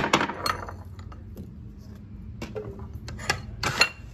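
A few sharp knocks and clinks of china plates and a marble mortar being handled and set down on a granite countertop, some with a short ring after.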